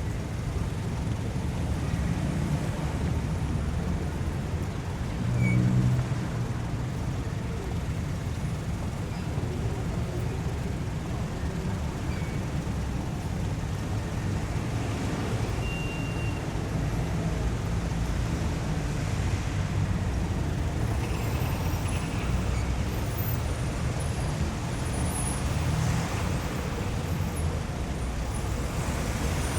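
City street traffic ambience: a steady rumble of passing cars and engines, with one louder low swell about six seconds in.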